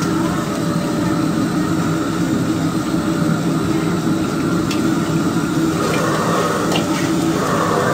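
High-pressure gas wok burner roaring steadily under a wok during stir-frying, with a few light clicks and scrapes of a metal ladle against the wok in the second half.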